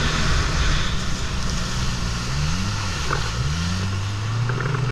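Jet ski engine running at speed, its pitch rising and falling a few times with the throttle, under a steady rush of wind and spray.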